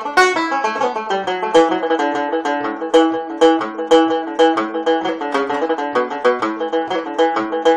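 Resonator banjo played with a plectrum: a fast, even run of single picked notes, a tune played without a break.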